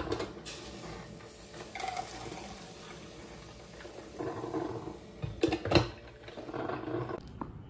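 Coffee poured from a glass drip-coffee-maker carafe into a paper cup, then the carafe set back into the coffee maker with two sharp clinks a little past halfway.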